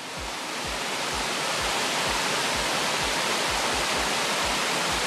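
A small cascading waterfall on a woodland brook rushes steadily, swelling in over the first second. Underneath it a low thudding beat of background music keeps going at about two beats a second.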